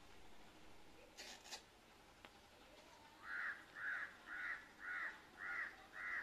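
A crow cawing six times in a row, about two caws a second, starting about halfway through.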